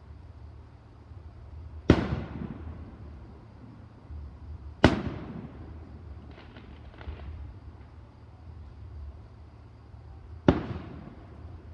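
Aerial firework shells bursting overhead: three sharp booms, the first two about three seconds apart and the third about five and a half seconds later, each trailing off in an echoing rumble, with faint crackling after the second.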